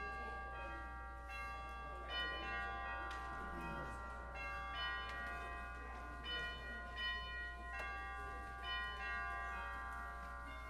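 Bell chimes playing a slow melody: struck notes one after another, each ringing on and overlapping the next.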